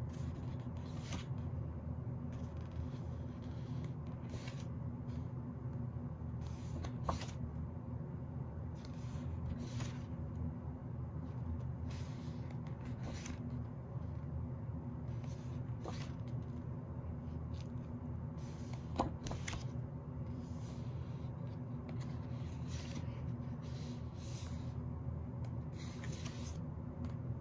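Pages of a softcover photobook being turned by hand: a short paper swish or rustle every second or two, over a steady low hum. Two sharp ticks stand out, about seven and nineteen seconds in.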